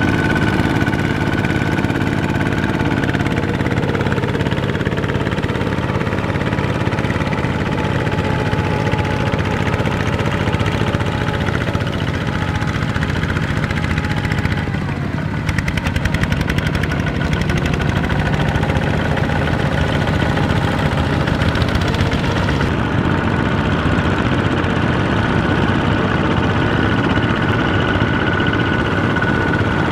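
Several Kubota ZT single-cylinder diesel walking tractors running steadily as they pull their cage wheels through a flooded rice paddy, their engines overlapping. The sound dips briefly about halfway through.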